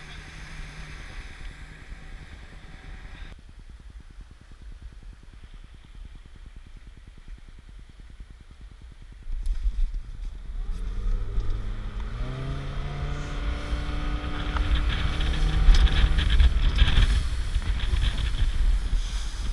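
Motorboat engine running low and faint for the first several seconds, then throttled up about nine seconds in, its pitch climbing over several seconds as the boat gets under way across the water.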